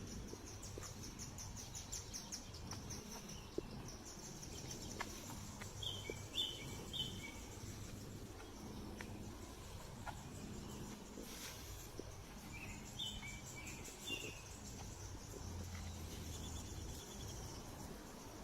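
Outdoor ambience: a steady, high, rapidly pulsing insect trill, with short bird chirps in small clusters twice, over a low background rumble and a few faint clicks.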